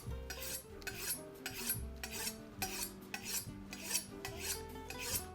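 Steel knife blade drawn repeatedly through a handheld knife sharpener: short rasping strokes, about two a second.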